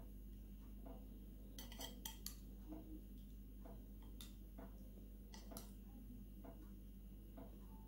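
Faint clinks of a metal spoon against plates and a bowl as food is scooped: a quick run of three or four clinks about two seconds in, then a few single clinks around the middle.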